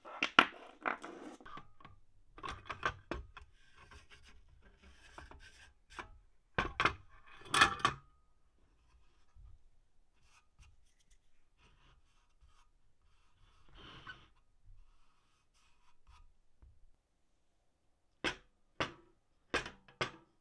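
Small brass scale weights clinking and clattering as they are handled, with rubbing and scraping of the scale's metal parts. Near the end comes a run of sharp knocks about half a second apart: the wooden base rocking against the bench because it is missing a foot.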